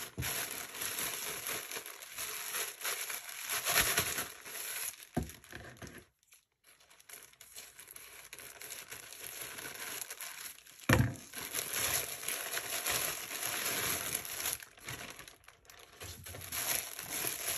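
Plastic mailer bag crinkling and rustling as it is handled and cut open with scissors, then the plastic-wrapped shirt inside rustling as it comes out. A single sharp knock about eleven seconds in.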